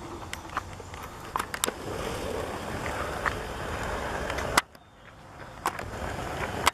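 Wingbeats of two mute swans flying overhead, the species' typical throbbing whoosh. It swells about two seconds in, breaks off suddenly, then builds again, with scattered sharp clicks.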